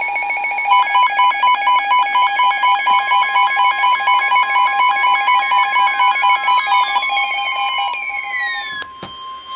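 Emergency Alert System alert tones: the steady two-tone attention signal, joined about a second in by fast, shrill electronic beeping at about three to four beeps a second. In the second half, tones glide downward. A sharp click near the end is followed by a single steady alert tone.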